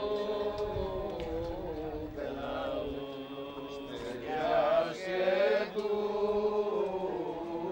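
Greek Orthodox Byzantine chant: male voices sing slow, ornamented lines over a steady held drone note. The singing swells louder around the middle.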